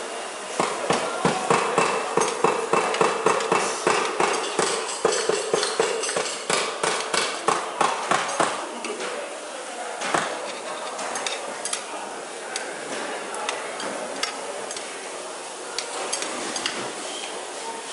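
Cooking utensil knocking rapidly against a frying pan while tomato and eggs are stir-fried, about three or four strokes a second; the strokes stop about eight and a half seconds in. One sharper knock follows near ten seconds, then the pan goes on sizzling with a few light clicks.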